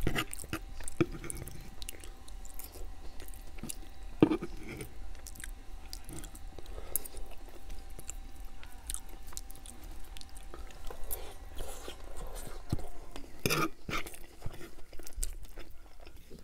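Chewing and mouth clicks of a man eating homemade meatloaf, with a fork cutting into the loaf between bites. A few louder clicks about four seconds in and again near the end.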